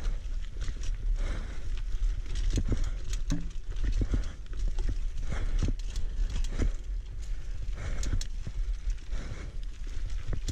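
Single-speed mountain bike rolling along a dirt singletrack trail, with a constant low rumble and frequent short knocks and rattles as it goes over bumps.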